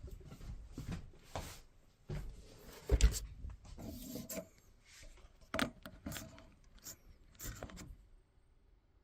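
Handling noises from an Xbox Series X console and its power cord being unplugged and moved: irregular knocks, clicks and rubbing, with the loudest knock about three seconds in, then quiet for the last second.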